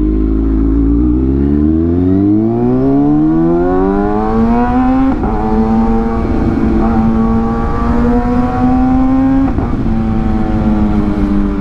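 Kawasaki ZX-6R's inline-four engine accelerating, its pitch climbing steadily for about five seconds. The pitch drops at an upshift and climbs again, then drops at a second upshift near the end.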